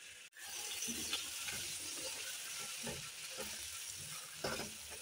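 Vegetables and spices sizzling in a non-stick wok while being stirred with a silicone spatula: a steady frying hiss under irregular soft scraping strokes.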